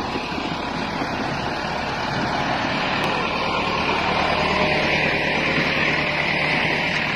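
Massey Ferguson 385 tractor's diesel engine running steadily at close range as the tractor drives past on chained tyres.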